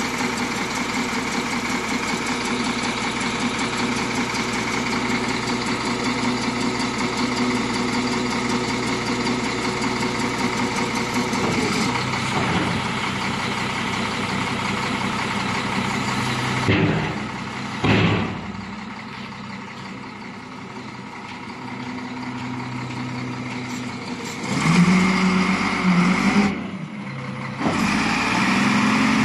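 Caterpillar 950H wheel loader's C7 diesel engine running, its note changing as the loader arms and bucket are worked hydraulically. Two short surges come just past the middle, then a quieter spell, then the engine picks up again with more surges near the end.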